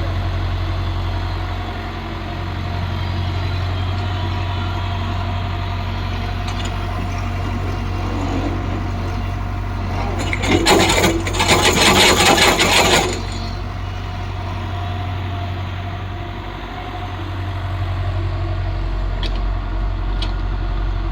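Hitachi excavator's diesel engine running steadily with a low hum. About halfway there is a louder stretch of clattering lasting two to three seconds.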